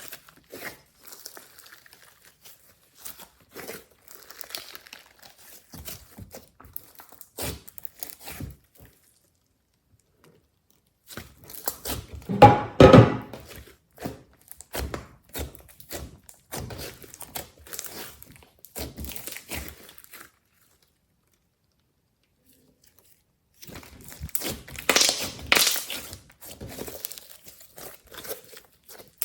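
Glossy slime being squished and poked by hand, giving crackly, clicking sounds in clusters. It is loudest in two bursts, about twelve seconds in and again around twenty-five seconds in, with two short silent gaps between.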